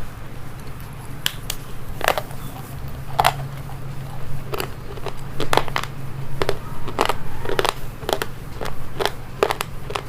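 Crunchy food being bitten and chewed close to the microphone, in sharp, irregular crunches that come more often in the second half, over a steady low hum.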